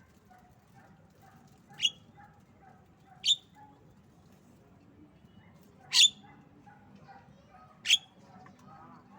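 Javan myna (jalak kebo) giving four short, sharp squawks, a second or two apart.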